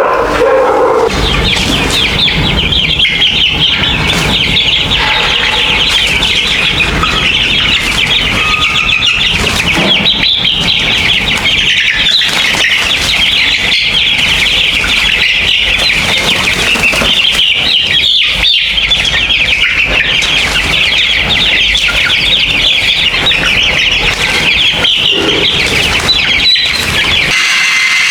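A flock of young chickens peeping continuously: a dense chorus of many overlapping high cheeps that starts about a second in and holds steady.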